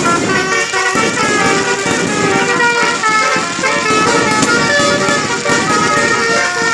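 Basuri musical air horn on a bus playing a quick melody, one held note after another, with a low rumble underneath.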